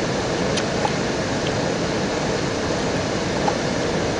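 Steady rushing roar of a large waterfall, with a few faint light clicks on top.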